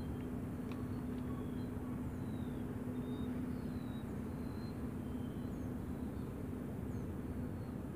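Steady outdoor ambience: a constant low hum with hiss, and a few faint, short high chirps scattered through.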